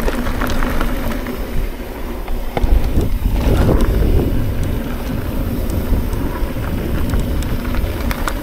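Wind rumbling on the microphone while riding an electric mountain bike over a trail, with tyre noise and scattered rattling clicks from the bike. The rumble grows louder for a second or two about three seconds in.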